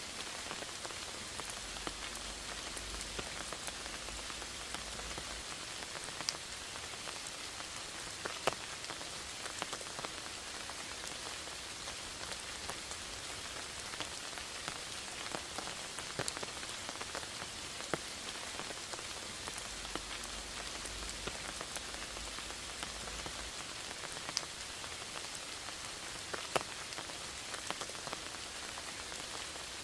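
Steady rain falling in a forest, a continuous hiss with scattered distinct drop ticks.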